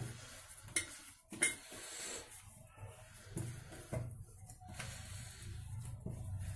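Hands kneading stiff maida dough in a steel plate: soft knocks and scraping against the metal, with two sharp metallic clinks about a second in. A low steady hum runs underneath.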